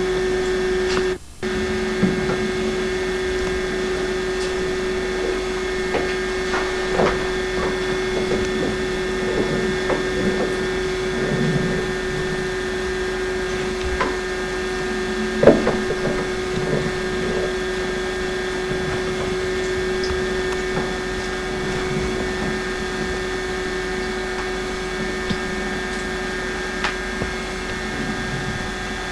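A steady mechanical hum at one pitch, with scattered light clicks and knocks over it; the sound cuts out for a moment about a second in.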